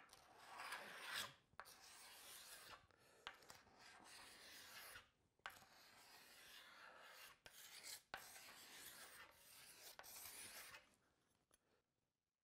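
Faint, repeated long strokes of a hand tool scraping wood off the belly of an Osage orange bow stave clamped in a vise, about seven strokes that stop near the end. This is tillering: wood is removed from the belly to bring the limbs to an even bend and the wanted draw weight.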